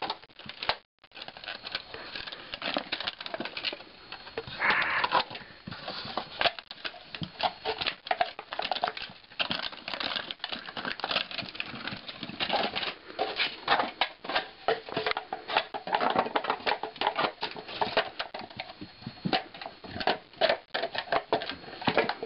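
English springer spaniel moving about and making dense, irregular clicking and pattering noises, with a brief break about a second in.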